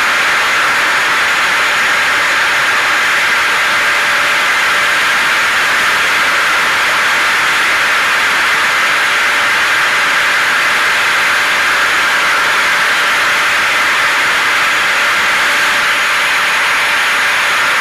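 Hair dryer, car and vacuum cleaner noise mixed into one loud, steady rushing hiss for sleep or soothing, with a faint steady hum under it. It does not change.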